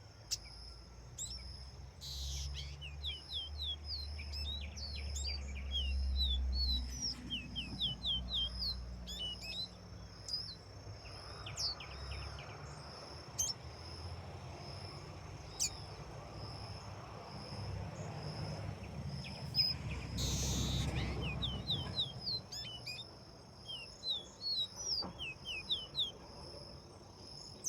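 Small songbird singing runs of quick, high chirps, each note sliding down in pitch, repeated in phrases, with a low rumble at times underneath.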